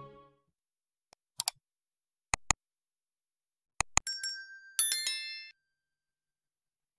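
Background music fading out, then subscribe-animation sound effects: short mouse clicks in pairs, followed about four seconds in by a bright notification-bell chime that rings for about a second and a half.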